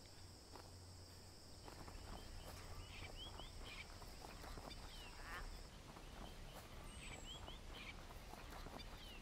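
Faint outdoor ambience: a steady high insect buzz that cuts off a little past halfway, with short bird chirps and soft footsteps rustling through grass.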